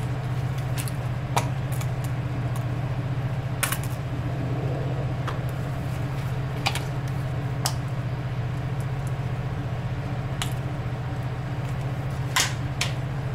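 Steady low hum of a ship's machinery, with about ten short clicks and squirts scattered through it as mayonnaise is squeezed from a plastic squeeze bottle.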